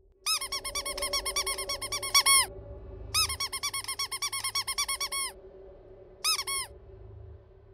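Cartoon squeak sound effect: fast runs of short squeaks, about seven a second, each run ending on a longer squeak. Two runs of about two seconds each, then a brief burst of a few squeaks near the end, over a faint steady hum.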